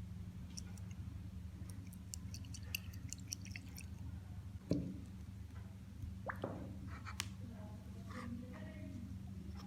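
Wet squishing and small clicks from engine parts being handled during a methanol clean, with one louder knock about halfway through, over a steady low hum.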